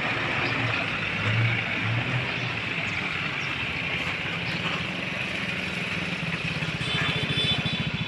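A large flock of house sparrows chirping together in a dense, continuous chorus. Underneath is a low vehicle engine hum that turns into a steady throb near the end.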